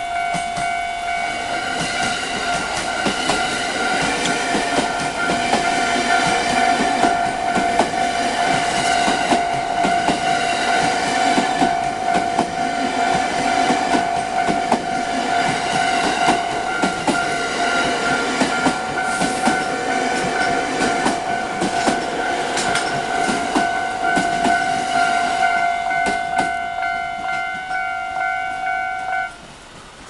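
Japanese level-crossing warning bell ringing steadily while a TWR Rinkai Line electric train runs past over the crossing, its wheels clicking over the rail joints. The bell cuts off near the end.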